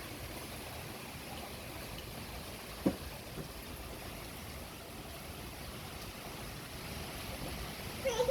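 Strong wind blowing steadily, with a brief pitched sound about three seconds in and another just before the end.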